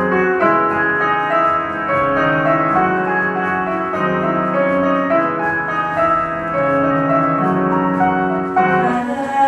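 Casio digital piano being played with both hands: a piece of held chords and melody notes over a repeating low note.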